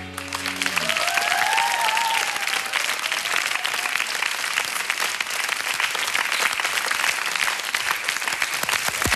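Studio audience applauding after a live pop song, as the band's last held note dies away in the first second. A voice or two calls out in the crowd about a second in.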